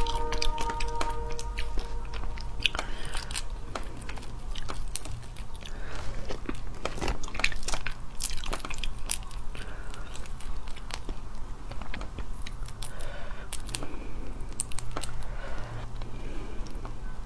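Shells of cooked large prawns cracked and peeled apart by hand: a run of sharp crackling clicks and crunches, with some wet eating sounds.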